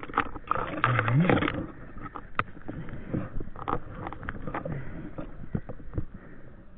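A climber scrambling with ice tools through snow-laden brush: irregular knocks, scrapes and rustles of branches and snow against the gear and camera, with a short grunt of effort about a second in.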